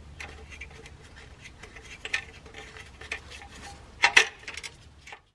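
Light metallic clinks and taps of a metal shield plate being fitted by hand over a clutch bellhousing, with a louder cluster of clinks about four seconds in.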